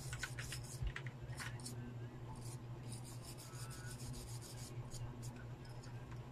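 Stiff bristle brush scrubbing a phone's motherboard in repeated short scratchy strokes, cleaning corrosion left by water damage, over a steady low hum.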